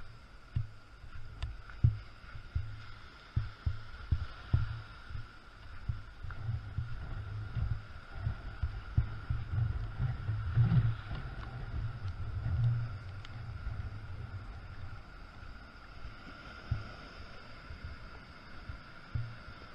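Hurricane wind buffeting the microphone in irregular low rumbling gusts, strongest about halfway through, over the steady wash of rough surf breaking on a rocky shore.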